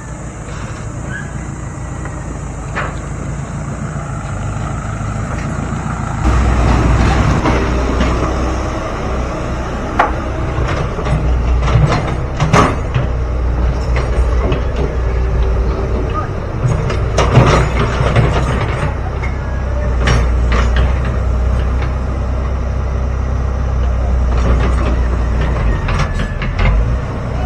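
Dump truck engine running steadily, growing louder about six seconds in, with scattered sharp knocks and clanks.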